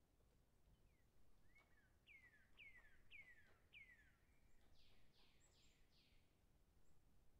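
Faint bird chirps: a run of short falling chirps, about two a second, then a few broader, higher falling calls.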